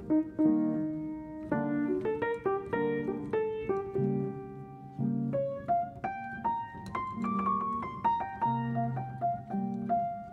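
Background piano music: a gentle melody over chords.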